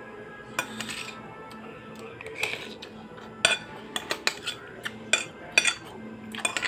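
Metal spoon clinking and scraping against a ceramic bowl of rice while eating: about a dozen sharp clinks, most of them in the second half. Background music plays underneath.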